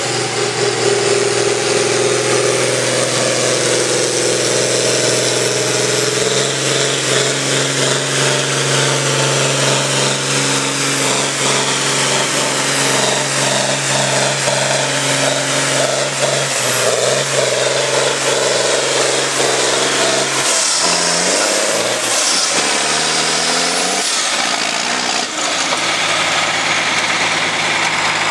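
Farm tractor engine running hard under load while pulling a sled down a tractor-pull track, holding a steady note. About twenty seconds in the pitch drops, then rises and falls a few times.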